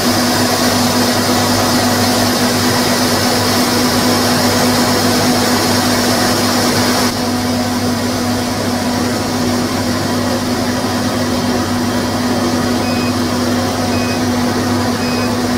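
Laser cutter running while it cuts plastic sheet, with its fume extraction fan giving a steady rush of air over a constant hum. The rush drops slightly about seven seconds in, and short faint high beeps come about once a second near the end.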